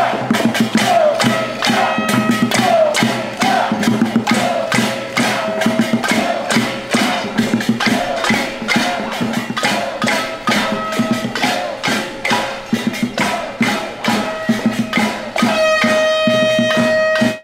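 Protest noisemaking: rapid, irregular banging and knocking of drums and handheld noisemakers, mixed with high pitched tones that glide at first. Near the end a single high tone is held for about a second and a half before everything cuts off suddenly.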